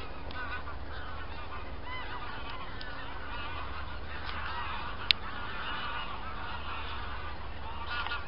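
A flock of wild geese flying overhead, many birds honking and calling over one another continuously. A single sharp click about five seconds in.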